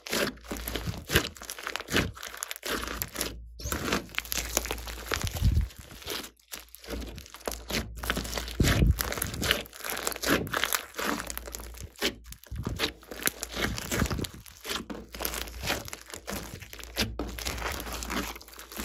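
Hands squeezing and kneading a large glossy slime packed with foam beads, giving a dense run of crackles and pops, with a few brief pauses.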